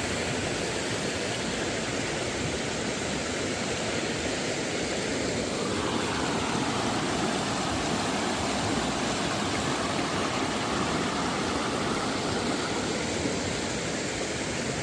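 Steady rushing of a stream's flowing water, an even noise whose tone shifts slightly about six seconds in.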